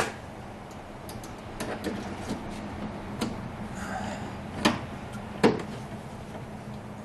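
A hand pop-rivet tool being squeezed to set a rivet through a steel bracket into fiberglass. It gives a series of sharp clicks and snaps, the loudest about five and a half seconds in.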